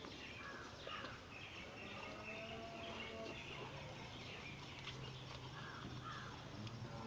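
Small birds chirping and calling, with a faint low hum setting in about a third of the way through.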